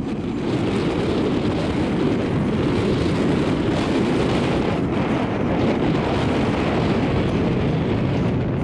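Wind buffeting the camera's microphone: a loud, steady rushing noise with no distinct events in it.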